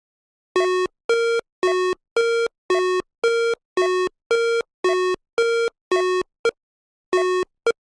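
An electronic beep tone repeating about twice a second, a dozen or more identical beeps, the last few cut short.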